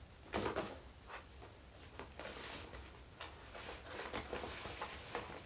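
Cardboard parcel box rustling and scraping on carpet as a cat pushes its head against it and shifts it, in short irregular bursts, the loudest about half a second in.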